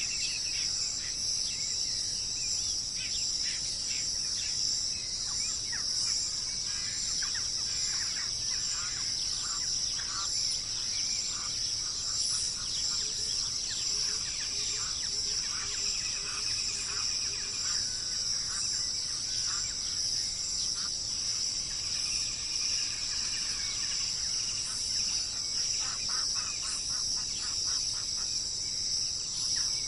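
Wild birds chirping and trilling in many short calls over a steady high drone of insects. A short run of low repeated notes comes in about the middle.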